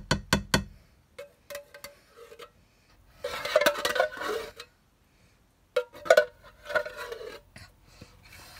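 A serving spoon knocking and scraping against a tin can and the pot as thick condensed cream of chicken soup is scooped out: runs of sharp, ringing taps, with a denser scraping stretch a few seconds in.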